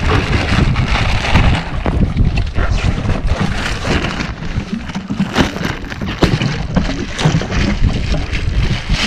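Wind buffeting the microphone on a small boat at sea, a gusty low rumble, with irregular knocks and water sloshing against the hull.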